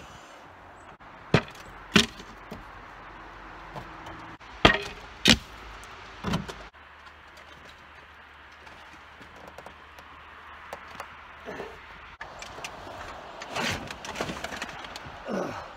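Boot kicks knocking against a pickup truck's door window: sharp knocks in pairs about a second and a half in and again near five seconds, then one more near six seconds. Shuffling noise follows near the end.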